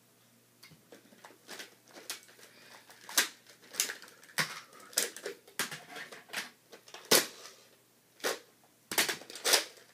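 Hard plastic Nerf blaster parts clicking and knocking as they are handled, clipped and unclipped: a string of irregular sharp clicks, a few of them louder.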